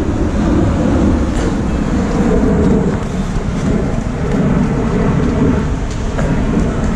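Wind buffeting the camera's microphone, a steady loud low rumble, as the camera is carried at a run up a slope behind a runner.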